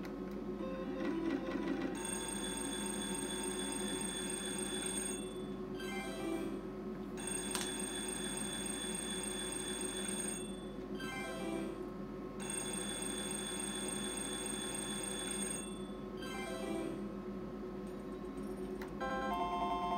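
Sizzling Hot slot machine playing its electronic bell-ringing win sound in three long stretches with short breaks, signalling a paid win while the winning lines are shown and the credits count up.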